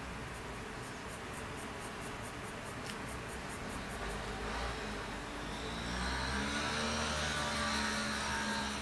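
A motor vehicle passes, its engine note rising in pitch and growing louder from about halfway through. Before it comes in, there is faint, quick, rhythmic scratching of a coloured pencil shading on paper.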